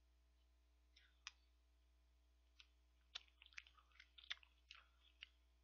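Faint clicks and smacks of someone eating ice cream with a metal spoon close to the microphone: a few scattered clicks at first, then a quick run of them through the second half.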